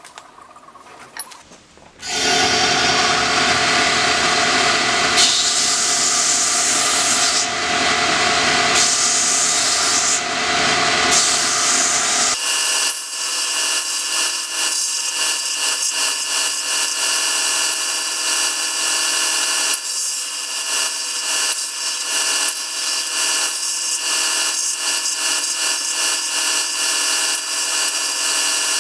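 Belt grinder running while a small wooden block is sanded against its abrasive belt, a loud steady grinding with a few held whining tones. The machine noise starts about two seconds in and changes abruptly in character about twelve seconds in.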